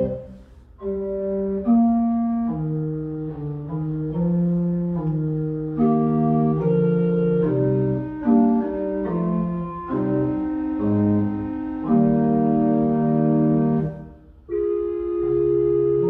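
Church organ playing sustained chords that change every second or so, with short breaks between phrases just after the start and again near the end.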